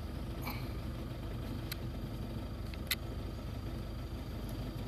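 An engine running steadily with a low, even hum, with a sharp click about three seconds in.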